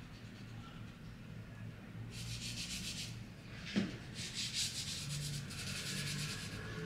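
Soft pastel stick rubbing over newsprint in quick repeated strokes, starting about two seconds in, with one light tap partway through.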